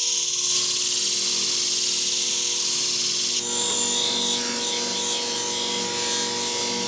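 Flat-hone shear sharpening machine running with a steady motor hum. For the first three and a half seconds a hard-steel shear blade grinds against its coarse spinning disc with a loud hiss, which cuts off suddenly as the blade is lifted away.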